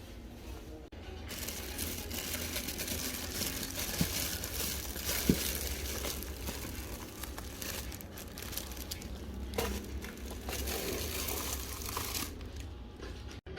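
Crinkling and rustling noise, with two sharp clicks about four and five seconds in.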